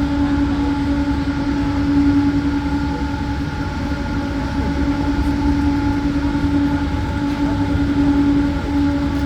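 Cable car in motion: a loud, steady whine over a low rumble.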